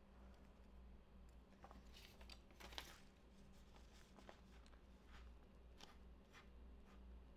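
Near silence: faint scratches of a ballpoint pen drawing on paper, with a few louder scrapes about three seconds in, over a low steady hum.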